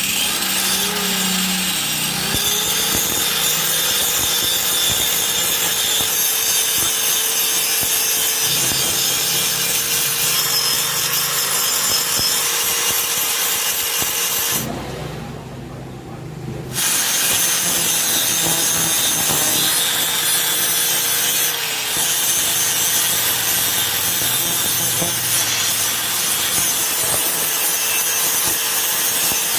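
Handheld power tool with an abrasive attachment scraping rust off the steel shell of a refrigerator compressor: a steady motor whine under a harsh, rasping grind. It spins up after a brief start, stops for about two seconds midway, then runs again and winds down at the end.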